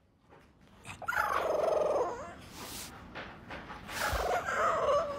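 French bulldog puppy making two long, warbling whine-like vocalizations, almost a gobble, the first starting about a second in and the second near the end.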